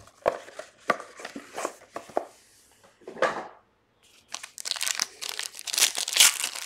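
Foil wrapper of a trading card pack being handled: scattered light rustles and taps, a brief swish about three seconds in, then dense crinkling of the foil as it is torn open near the end.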